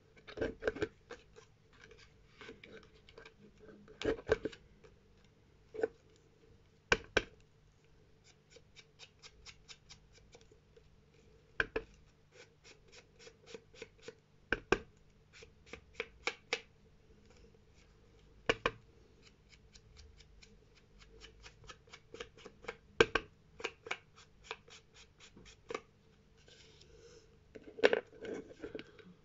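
Paper-craft handling at a table: sharp clicks and taps of tools on small cards. They come singly, with a few louder knocks, and in quick runs of several taps a second.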